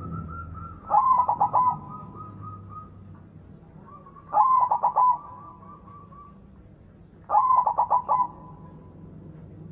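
White zebra dove (perkutut) singing: three phrases of rapid, stuttering coos, each about a second long and roughly three seconds apart.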